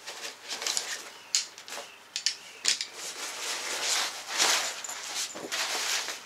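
Fabric stuff sack rustling and crinkling in irregular bursts as a folded camping chair is pulled out of it, with a few sharp clicks along the way.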